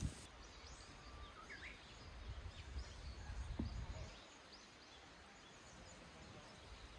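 Faint open-air ambience with scattered short bird chirps, over an irregular low rumble that fades out about four seconds in.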